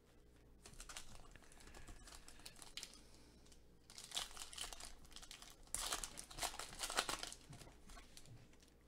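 Foil wrapper of a Leaf Draft Football card pack crinkling and tearing as it is handled and ripped open by hand, loudest in two spells about four and six seconds in.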